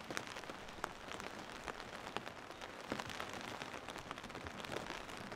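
Steady rain falling, with many small ticks of single drops landing.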